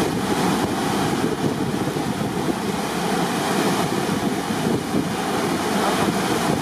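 Churning water rushing in a glass-bottom tour boat's stern wake, a steady wash with wind blowing on the microphone.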